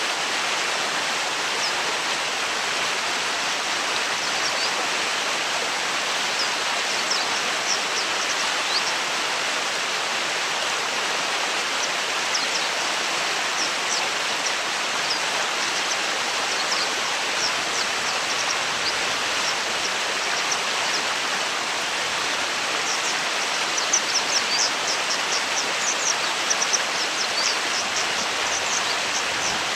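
Japanese wagtail calling in short, high chirps, scattered at first and then coming in a quick, louder run about two-thirds of the way in, over the steady rush of a stream.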